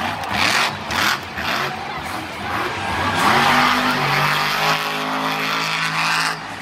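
A monster truck's engine revving hard several times, then held at high revs for about three seconds from roughly halfway through, as the truck spins donuts in the dirt.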